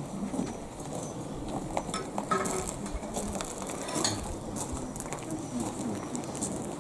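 Quiet ambience of a small gathering standing still: faint murmured voices, shuffling and scattered small clicks and knocks.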